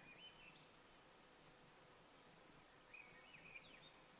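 Near silence with a faint songbird singing twice: short phrases of whistled notes that step and glide upward, once at the start and again about three seconds in.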